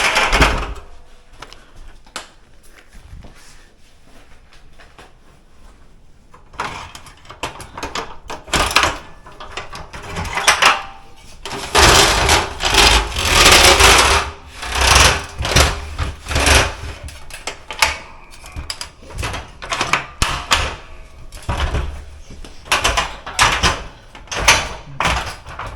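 Irregular knocking, clattering and rustling of things being handled. It is quieter for the first few seconds, then dense and loud.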